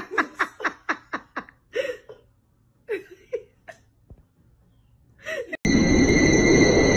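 A person laughing: a quick run of short bursts, then a few separate laughs and gasps. Near the end a loud, steady hiss with a few fixed high tones cuts in abruptly.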